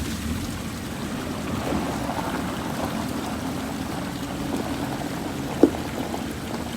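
A vehicle engine runs steadily as a low hum under an even rushing noise, with one sharp knock about five and a half seconds in.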